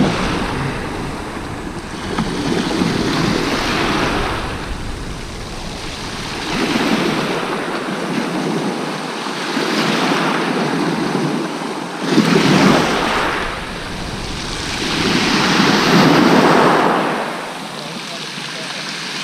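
Small waves breaking and washing up a shingle beach, swelling and fading about every three to four seconds.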